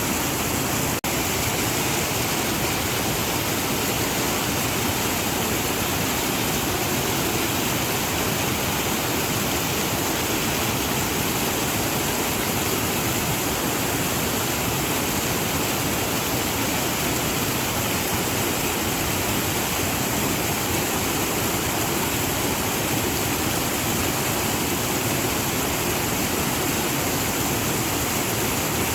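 Waterfall rushing in a steady, unbroken roar of falling water, with a brief dip in level about a second in.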